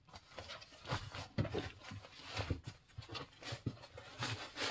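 Red fabric holder full of metric stubby wrenches being folded over and pressed closed by hand: irregular rustling of the fabric with scattered small knocks and clicks.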